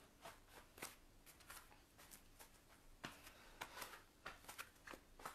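Near silence with faint, scattered clicks and rustles of body movement on a foam yoga mat.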